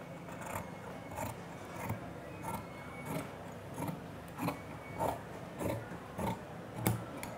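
Large tailor's shears cutting through khaki bee-suit fabric: a snip each time the blades close, about every half second, with the sharpest snip near the end. A faint steady low hum lies underneath.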